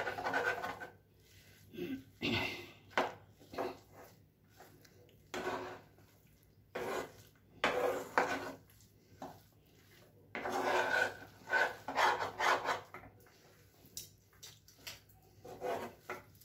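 Metal spatula scraping and knocking against a pan while stirring and pressing a thick semolina, flour and chhena dough. The scraping comes in irregular strokes with short pauses between them.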